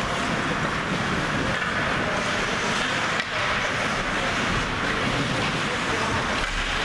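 Ice hockey rink ambience during a stop in play: a steady wash of indistinct voices and hall noise, echoing in the arena.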